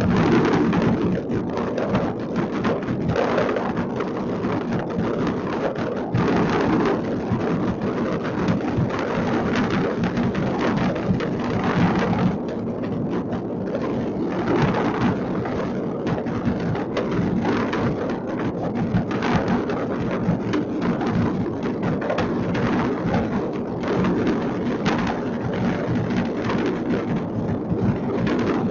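Many fireworks going off all over a city at once: a dense, unbroken crackle of bangs that blends into a steady rumble, without a lull.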